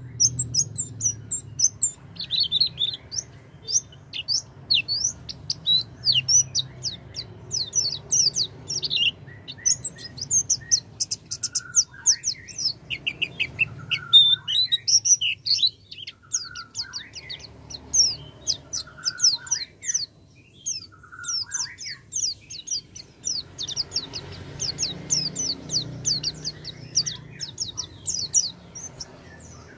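White-eyes (pleci) singing: rapid, high twittering chirps and trills almost throughout, with short lower whistled notes between about 12 and 22 seconds in. This is a lure (pancingan) song recording meant to prompt silent pleci to sing.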